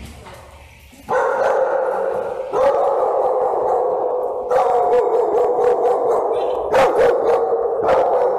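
Several dogs barking together in a continuous, loud din that starts about a second in, with a few sharper single barks standing out near the end.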